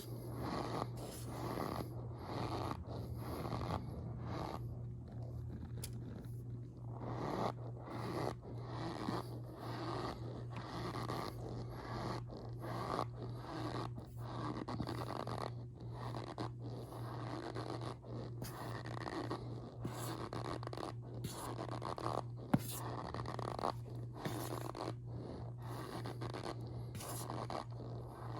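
Squeaky powder being pressed and squeezed: a continuous run of short, squeaky crunches and scrapes.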